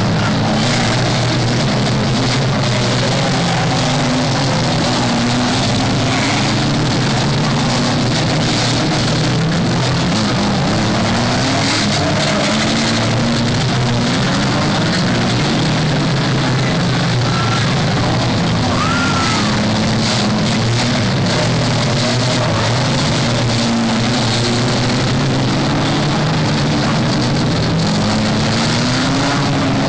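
Banger racing cars, several old saloon-car engines running and revving at once. Their pitches rise and fall as the cars race round the oval, over a constant loud roar.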